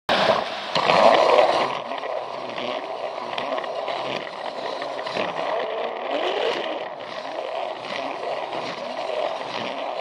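Plarail battery-powered toy train running along plastic track: its small electric motor and gears whirring while the wheels rattle and scrape on the rails, with the pitch wavering and a louder stretch about a second in.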